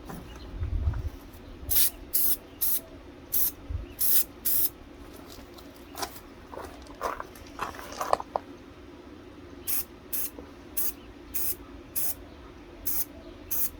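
Aerosol spray paint can (Fusion all-in-one white) being sprayed in many short bursts of hiss, each well under half a second, as a third coat is laid on.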